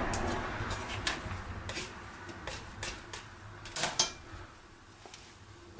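Hands pressing and folding soft bread dough on a wooden worktop: soft handling sounds with scattered light taps and clicks, the sharpest a pair about four seconds in.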